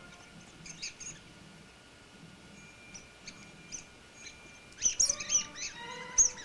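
Rubber squeaky toy squeaking in short high squeaks as a poodle chews it, sparse at first, then a quick run of squeaks about five seconds in. Faint music plays underneath.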